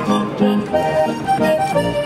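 Traditional German folk dance music played on accordion, a bright tune over a steady beat.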